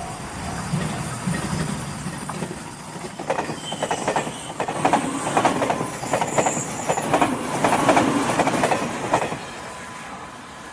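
JR Shikoku 8000 series electric limited express train passing close by. After a building rumble, its wheels clatter over the rail joints in a fast, even run of clicks for about six seconds, the loudest part. The sound drops away sharply as the last car goes by.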